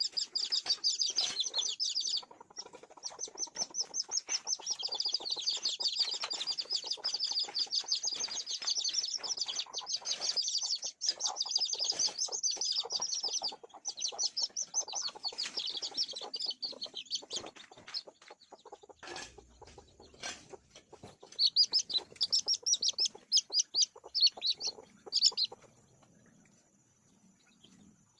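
A crowd of chickens, mostly high-pitched rapid peeping with some lower clucking underneath. The peeping thins out about halfway through, with a couple of sharp knocks, comes back in short flurries, then stops shortly before the end.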